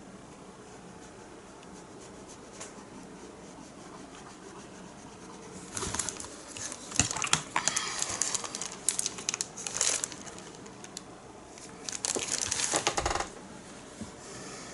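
Crinkling handling noise in two bursts, the first from about six seconds in lasting some four seconds, the second shorter near the end.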